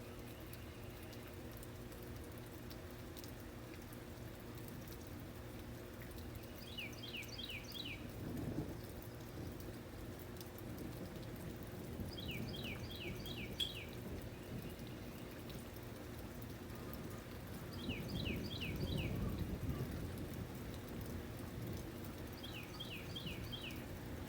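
Rain-and-nature ambience: steady rain with low rolls of thunder twice. A bird calls a quick run of four or five falling notes about every five seconds.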